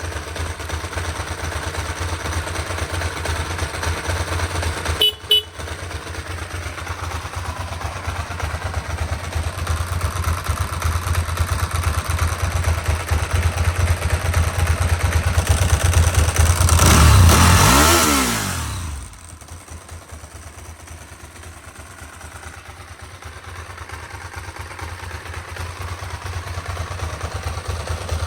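Motorcycle engine running at idle with a steady low pulse; its sound is normal, not a fault, by the owner's own account. About five seconds in there is a brief click, and around two-thirds of the way through the sound swells much louder for a couple of seconds, then drops back quieter.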